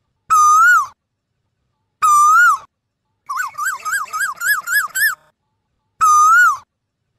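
Asian koel calling: three loud, clear whistled notes that rise and dip at the end, and between the second and third a quick run of about seven short rising notes.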